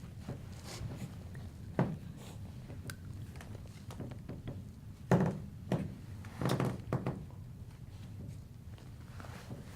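A few dull thuds and knocks over low room noise, the loudest about five seconds in.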